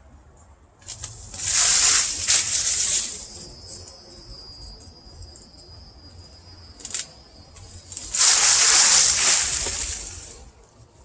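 Leafy mango branches rustling in two long swishes, one early and one near the end, with a faint steady high tone between them.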